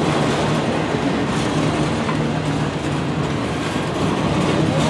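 Freight train cars, boxcars and an autorack, rolling past close by: a steady rumble and rattle of steel wheels on the rails.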